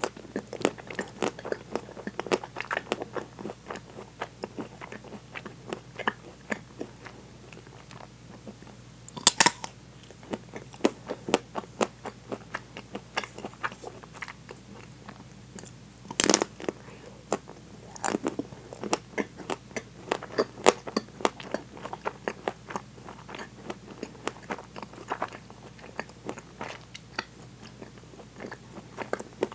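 Close-miked biting and chewing of a frozen chocolate ice cream bar with a hard, nut-studded chocolate coating: a steady run of crackly crunches as the coating breaks up. Two louder bites come about a third of the way and halfway through.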